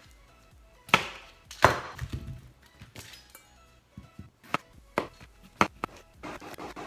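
Kitchen knife cutting through a cucumber onto a plastic cutting board: separate sharp strikes, the two loudest between one and two seconds in, then a quicker run of dicing cuts from about four seconds in. Faint background music underneath.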